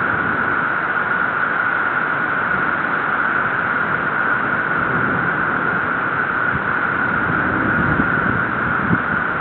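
Steady, even hiss with no separate events, strongest in a narrow mid-high band.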